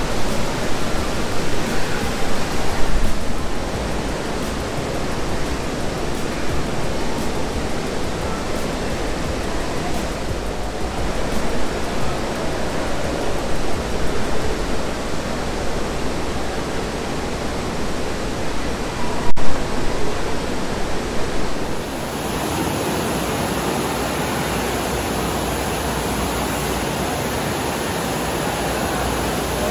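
Steady rushing water echoing through a large indoor water park hall, in the later part the sheet of water pumped up a FlowRider surf simulator's ramp. There is a brief louder burst about two-thirds of the way in.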